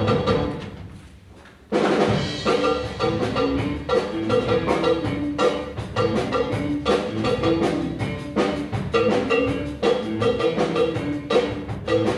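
Live band music for a stage dance number: a loud chord dies away, then about a second and a half in a driving section with drum kit and percussion starts on a quick, steady beat.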